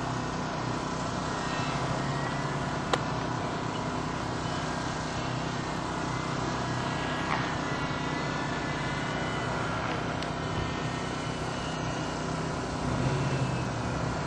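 An engine running with a steady drone throughout, with a single sharp click about three seconds in.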